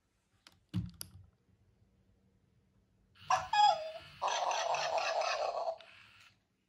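Two sharp clicks about a second in, then the Hasbro i-Dog robot toy plays electronic dog sounds through its small speaker: a short call with gliding pitch about three seconds in, followed by a longer, noisy sound lasting about a second and a half.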